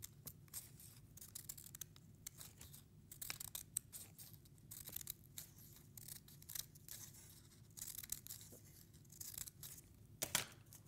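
Scissors snipping a row of slits into folded brown paper-bag paper: a run of short, faint cuts, the loudest one near the end.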